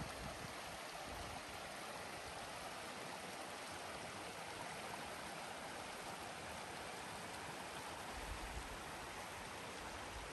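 Steady rush of flowing water, with a low rumble coming in near the end.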